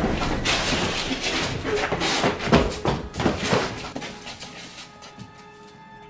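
A loud commotion of knocks, bangs and scraping that dies away after about four seconds. Soft sustained music notes come in near the end.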